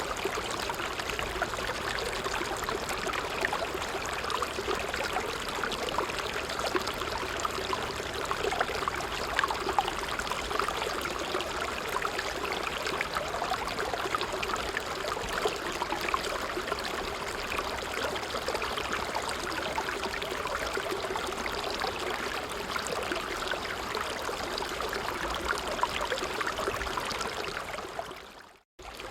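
A small brook babbling steadily over stones, an even rush of water with fine gurgles. Near the end it fades out almost completely for a moment and then comes straight back.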